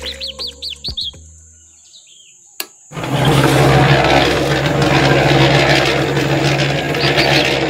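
A short run of quick bird chirps in the first second, then a single click, and about three seconds in the miniature concrete mixer's small electric motor starts and runs with a loud, steady hum.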